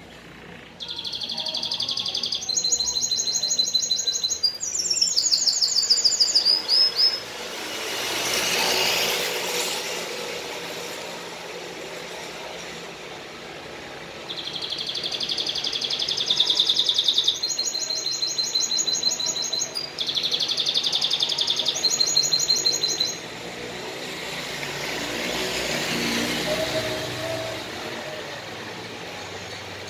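Domestic canary singing two long bouts of song, each a string of fast rolled trills at changing pitches, the first starting about a second in and the second about halfway through. The song is that of a canary in breeding condition. Between and after the bouts a broad rushing noise swells and fades twice.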